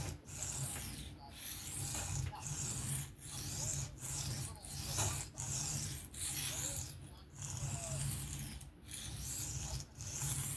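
Knife blade being stroked back and forth on an Atoma 400 diamond sharpening plate in freehand sharpening. It makes a steady run of rasping scrapes at roughly one or two a second, with brief breaks between strokes.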